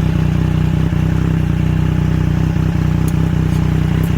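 Triumph Street Triple 765 RS's inline three-cylinder engine idling steadily through an SC Project S1 titanium exhaust.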